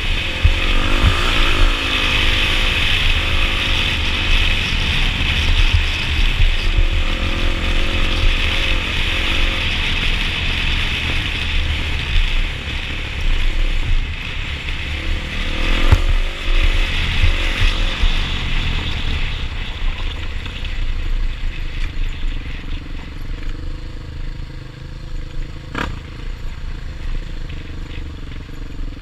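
Dirt bike engine running under way, its pitch rising and falling with the throttle over rough, rocky trail, heard from the rider's helmet camera. A loud rushing hiss over it fades after about twenty seconds, and there is a single sharp knock near the end.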